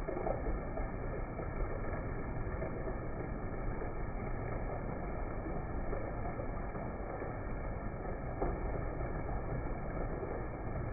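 Heavy rain falling steadily, an even, unbroken wash of noise.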